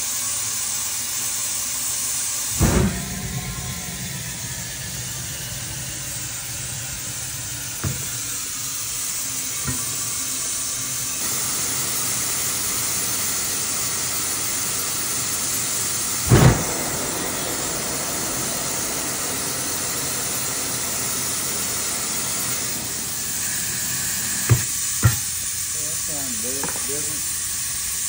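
Steady hiss of compressed air from an air hose inflating a tractor tire, broken by a few short loud knocks: one about 3 seconds in, one midway, and two close together near the end.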